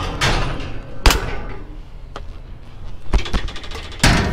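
Hard objects banging and knocking as junk is handled and dropped: one sharp, ringing bang about a second in, two quick knocks a little after three seconds, and a heavier bang near the end.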